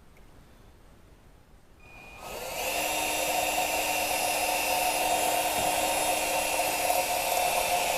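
Electric drill starting up about two seconds in and running steadily with a steady whine, drilling into a broken bolt.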